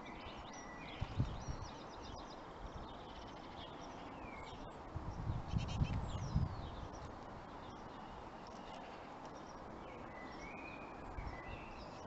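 Great tit nestlings chirping in their tree-hole nest: a few short, thin, high calls, some gliding in pitch. There are low thumps about a second in and again around the middle, over a steady outdoor hiss.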